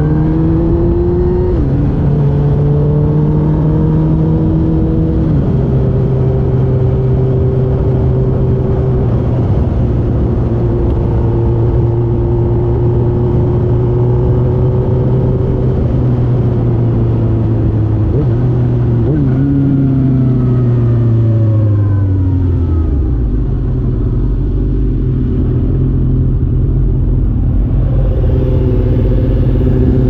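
2006 Suzuki GSX-R1000 K6 inline-four engine through a full Yoshimura carbon-titanium exhaust, revving up and shifting up twice in the first few seconds, then holding a steady cruise. It then winds down under engine braking with a quick throttle blip about two-thirds of the way through, and settles to an idle for the last several seconds.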